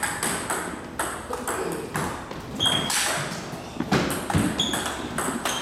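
Table tennis balls being played: a quick, irregular series of sharp clicks of the celluloid-type ball striking paddles and the table.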